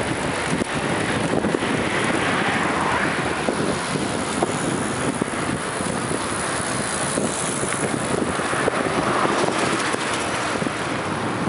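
Wind buffeting the microphone of a camera on a moving bicycle: a steady rushing noise, mixed with road and tyre noise from riding.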